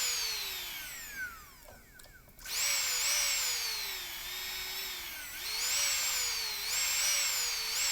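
Nail grinder's handpiece motor whining, winding down almost to a stop about two seconds in, then starting again with a click and surging up and down in speed. The unsteady speed is the fault, which the repairer takes for a bad speed-control potentiometer rather than worn carbon brushes.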